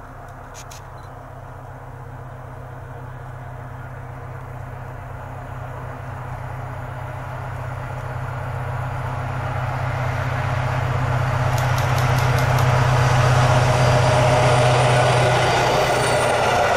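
SM42 diesel shunting locomotive approaching under power with a works train, its engine drone holding one steady pitch while growing steadily louder, loudest as it passes near the end. Then the rolling rumble and rattle of the freight wagons' wheels on the rails takes over.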